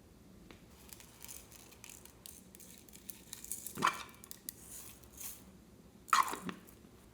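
Slime being handled: a run of small crackling clicks as it is pressed and stretched, with two louder squishes about four and six seconds in.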